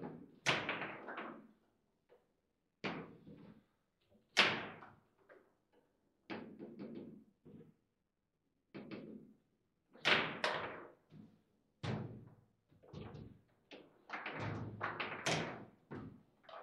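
Table football being played: sharp knocks and clacks of the ball against the rod-mounted plastic players and the table, in irregular bursts with short silences between.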